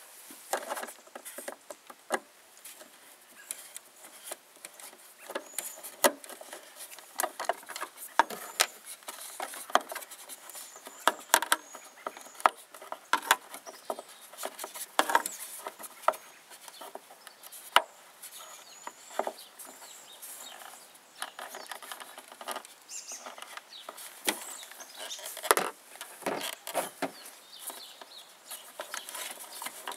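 Phillips screwdriver working the screws out of the plastic license plate lamp lens on a 2007 Toyota Highlander: many irregular sharp clicks and small scrapes of the metal tip on the screws and of fingers on the plastic cover as it loosens.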